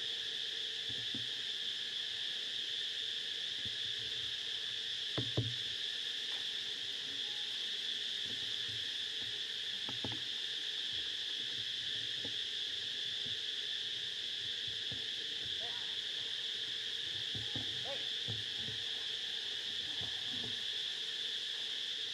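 A steady high-pitched insect drone with no break in it, such as cicadas or crickets. A few faint short knocks and rustles sit under it, the most distinct a brief thump about five seconds in.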